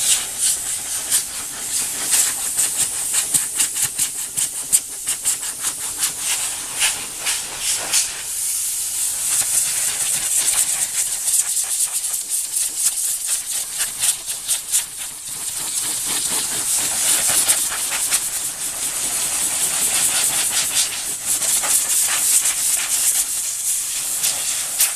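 Compressed air hissing from an air-hose nozzle blown into a dog's coat to loosen shed fur. The rush flickers and rises and falls unevenly as the nozzle moves through the fur.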